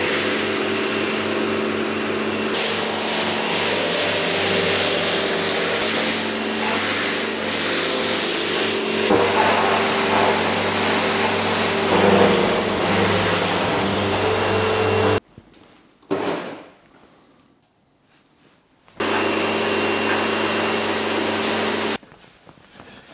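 Pressure washer running, its pump motor humming under the hiss of the water jet as it rinses the inside of a stainless boil kettle after caustic cleaning. It stops about fifteen seconds in, gives a brief burst, then runs again for about three seconds before cutting off near the end.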